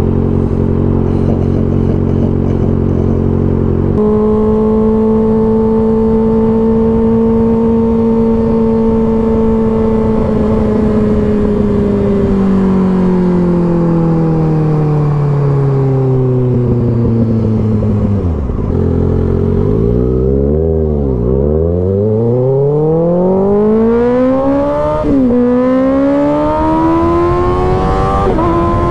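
Kawasaki Ninja ZX-6R 636's inline-four engine under way. It runs steadily, jumps to higher revs about four seconds in, then winds down slowly as the bike slows. After a few quick revs up and down it pulls hard through the gears, with upshifts near the end.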